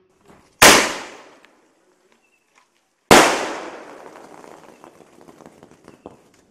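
One-inch aerial firework shells from a Century Fireworks 'Midnight Dream' sky-shot: two loud bangs about two and a half seconds apart. The second is followed by a few seconds of scattered crackling as the burst stars burn out.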